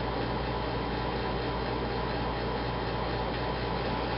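Room air conditioner running: a steady, even rush of noise with a constant low hum underneath.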